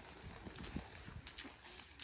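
Footsteps of rubber boots on wet, muddy ground: a few uneven steps.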